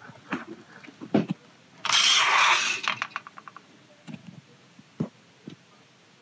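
Grey styrene plastic model-kit sprues being handled on a cutting mat: scattered knocks and clicks of plastic parts, with a loud rustle lasting about a second near two seconds in, followed by a quick rattle of small clicks.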